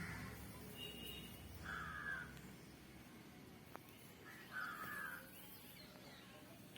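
Two faint crow caws about three seconds apart, with a single small click between them.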